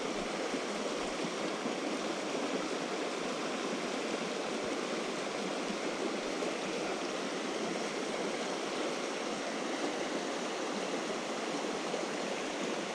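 A shallow, rocky mountain creek running over stones: a steady rush of flowing water.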